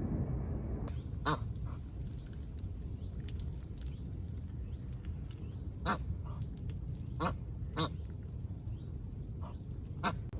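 Ducks quacking: a handful of short, separate quacks spread across several seconds, over a steady low rumble in the background.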